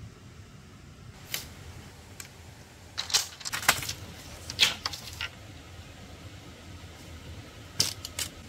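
Irregular sharp clicks and clinks of small hard objects striking. There is one about a second in, a quick cluster around the middle, and a couple more near the end, over a low steady background hum.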